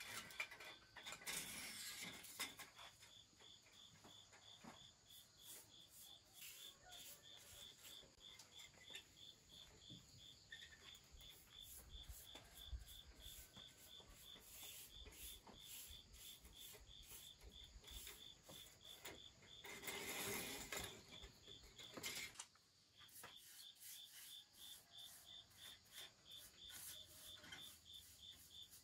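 Crickets chirping in a steady, evenly pulsing trill, with faint intermittent rubbing and scraping. Two louder rasping rubs stand out, one near the start and one about twenty seconds in.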